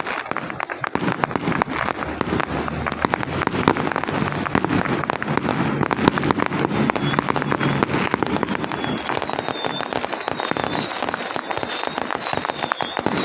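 Firecrackers going off in a dense, continuous crackle of rapid pops.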